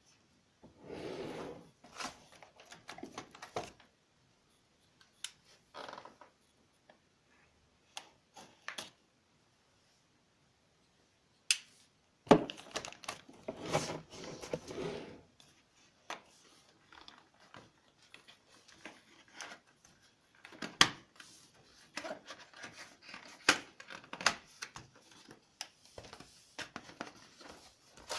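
Graphics card retail packaging being handled and opened: cardboard box and plastic wrapping rustled, with scattered clicks and taps. There is a pause of a couple of seconds about ten seconds in, and the busiest rustling follows.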